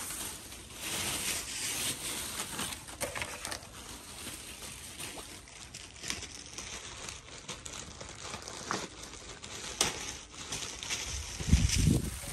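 Crinkling and rustling of packaging as a pair of pants is pulled out and handled, with a low rumble near the end.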